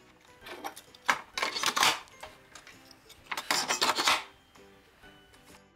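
Metal drawer sides being fitted and pressed onto a chipboard drawer bottom in an assembly jig: scraping and clattering of metal against board in two main bursts, about a second in and about three and a half seconds in. Faint background music runs underneath.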